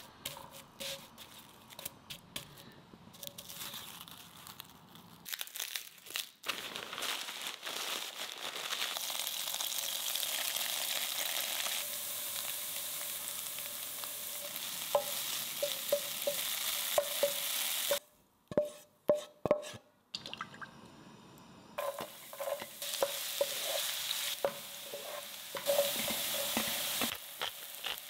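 Stir-frying in a nonstick wok with a wooden spatula. First comes quieter scraping and clicking as a sheet of nori is pressed in the pan. Then crumbled tofu and diced vegetables sizzle steadily in oil while the spatula stirs, with a few loud, sharp knocks of the spatula on the pan about two-thirds of the way through.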